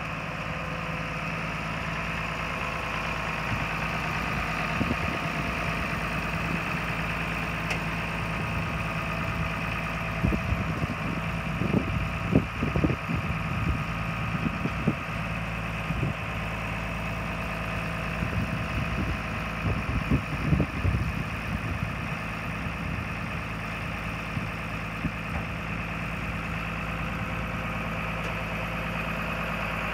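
International Harvester 856 tractor engine idling steadily. A few bursts of low buffeting noise come in about ten to thirteen seconds in and again around twenty seconds.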